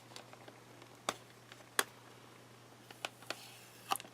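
A handful of light, separate clicks and taps, about five in four seconds, from hands handling the smart lock's retail packaging, over a faint steady low hum.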